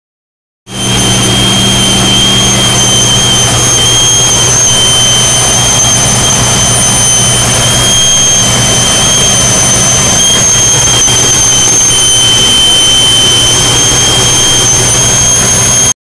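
2001 Jeep Cherokee engine idling with a loud, steady, high-pitched whistle, almost like a tea kettle, over the low engine hum. It starts just under a second in. Cleaning the idle air control valve has not cured the whistle, and the owner places it on the right side of the engine.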